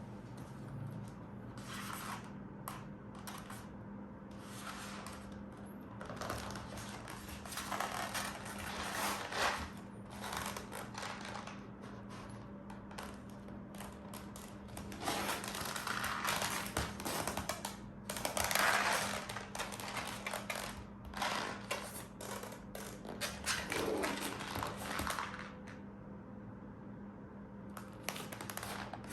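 Irregular metallic clicks, rattles and scraping from handling a full-metal gas blowback airsoft pistol, over a steady low hum.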